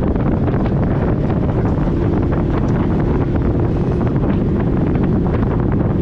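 Wind buffeting the microphone over the running engine and tyres of an off-road vehicle driving on a dirt road, with frequent small knocks from the bumps.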